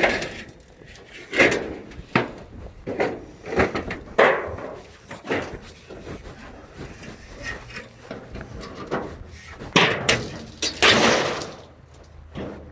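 Irregular knocks and bangs of boards and scrap being handled and dropped, with a longer rattling crash about eleven seconds in.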